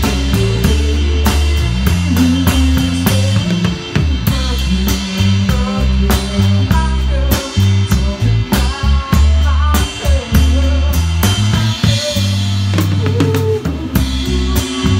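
Live band playing: a drum kit with frequent snare, rimshot and kick hits, an electric bass holding long low notes, and an electric guitar playing lines that bend in pitch.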